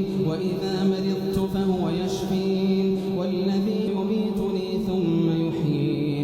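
A man's voice chanting Quran recitation, holding long drawn-out melodic notes that step slightly in pitch.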